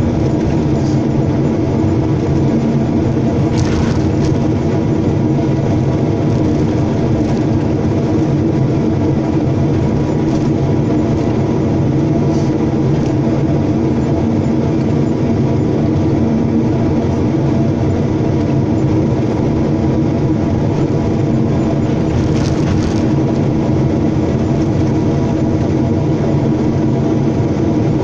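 Hyundai hydraulic excavator's diesel engine running steadily under working load, heard from the operator's cab while the bucket works in the trench.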